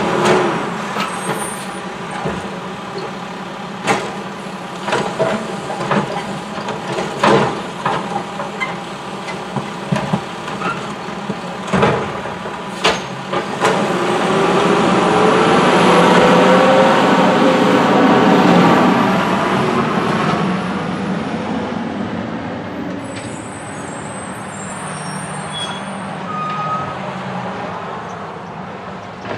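Automated side-loader garbage truck: the diesel engine runs steadily under a series of sharp metal clanks and knocks, then revs up, louder and rising in pitch, as the truck pulls away about halfway through, and fades.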